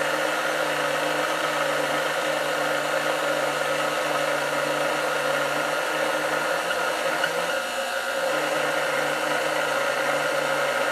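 KitchenAid stand mixer's motor running steadily on its lowest speed, driving a fettuccine cutter attachment.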